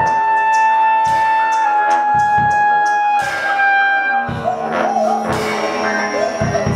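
Free-improvised ensemble music of voices, trumpet, trombone, piano and drums. A long held high note sinks slightly lower and ends about four seconds in, then gives way to wavering notes. Scattered drum and cymbal strokes sound throughout.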